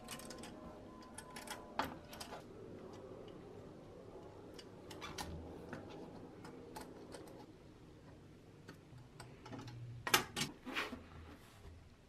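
Small clicks and taps as plastic toy wheels on a thin steel axle are handled and fitted against the pressed-steel chassis of a toy dump truck, with a quick cluster of louder clicks about ten seconds in.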